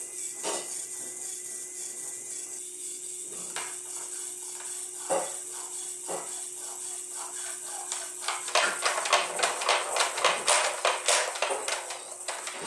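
Small plastic pitching machine built from a Robotis OLLO kit, its motor giving a faint steady hum with occasional single clicks, then, from about two-thirds through, a rapid clatter of plastic clicks and knocks.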